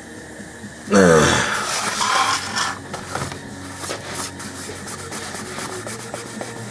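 A short groan falling in pitch about a second in, then scraping and rubbing noises with scattered clicks as someone shifts around and handles things.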